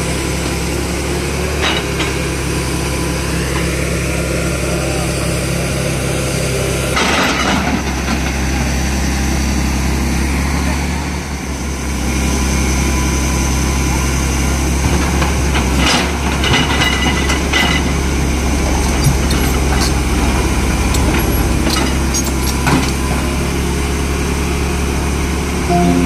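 Tata Hitachi crawler excavator's diesel engine running steadily under load as its bucket digs into and turns over a pile of cement, sand and stone chips, with a few scraping knocks from the bucket.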